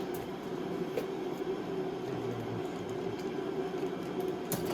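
Steady mechanical hum with an even pitch, like a fan or heater running, with a couple of brief light clicks, about a second in and near the end.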